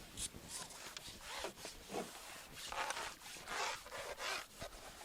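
Irregular rubbing and scraping swishes, about seven short rasps in a few seconds, typical of handling noise from tackle or waterproof clothing being moved.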